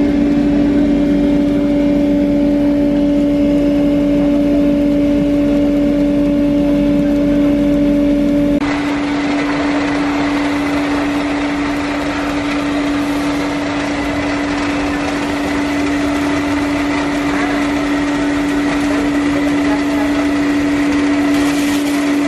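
Rice-puffing roaster machine running with a steady mechanical hum. The sound changes abruptly about a third of the way in, and the hum carries on through the change.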